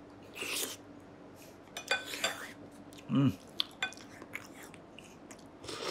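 A person eating soup from a spoon: a sip, light clicks and clinks of a metal spoon, and a short hummed "mm" about three seconds in.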